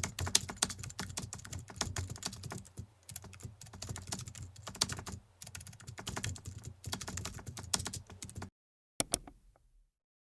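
Rapid, irregular key clicks of typing on a computer keyboard, with short pauses, cutting off abruptly about eight and a half seconds in. A last couple of clicks follow a moment later.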